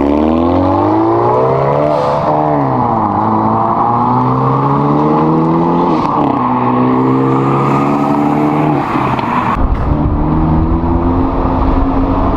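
2024 Hyundai Elantra N's turbocharged 2.0-litre four-cylinder accelerating hard, its exhaust note climbing and dropping back several times as it pulls through the revs. It runs through a titanium mid-pipe that deletes the resonator, ahead of the stock exhaust. A heavy low rumble takes over near the end.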